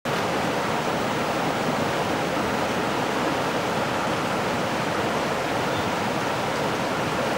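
Mountain creek water rushing and bubbling steadily, where a jet of water spouts up from the creek bed and dies back to a boil.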